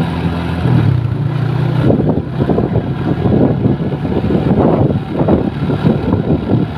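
Diesel engine of a bus running close by: a steady low note at the start and end, rougher and more broken in the middle seconds.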